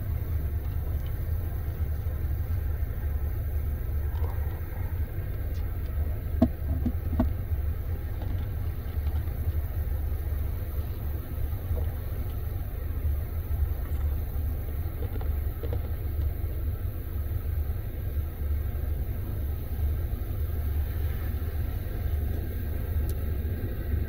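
Combine harvester running while picking corn: a steady low rumble, with a few faint clicks about six to seven seconds in.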